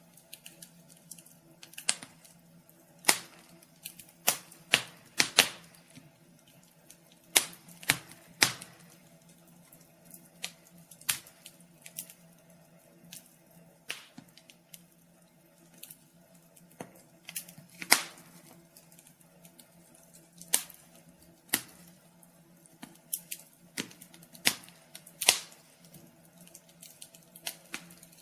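Wood fire crackling: irregular sharp pops and snaps, a few every couple of seconds, some louder than others, over a faint steady hum.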